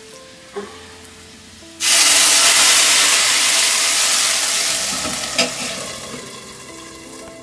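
Hot oil with fried spices poured from a small iron pan into a pot of cooked stinging nettle: a loud sizzle starts suddenly about two seconds in and slowly dies away. A metal clank from the pot's lid comes a few seconds later.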